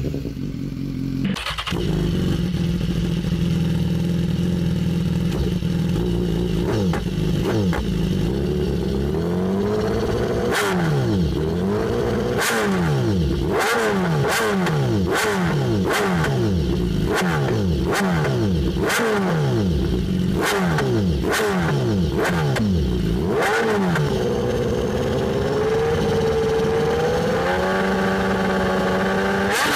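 BMW S1000RR inline-four through an Austin Racing aftermarket exhaust, revved while standing. It idles steadily, then is blipped in quick rising-and-falling revs about once a second with sharp cracks at the peaks, and near the end is held at higher revs that climb in steps.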